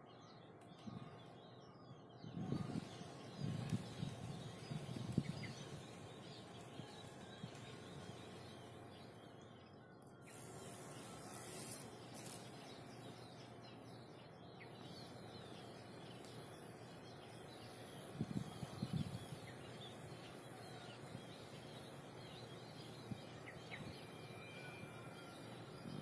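Quiet outdoor ambience: faint, scattered bird chirps over a steady insect hiss, broken twice by brief low rumbles, a few seconds in and again past the middle.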